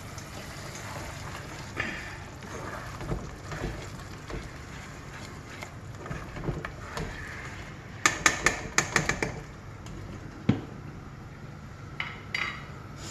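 Kitchen utensil sounds: a spatula stirring and knocking in a steel pot of curry on a gas stove, with a quick run of about eight sharp clicks about eight seconds in and one more knock shortly after.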